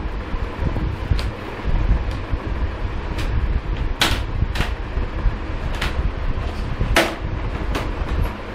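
Steady low rumble with scattered sharp knocks and clacks, about seven of them, the loudest about four and seven seconds in, as a toddler handles and bangs household objects.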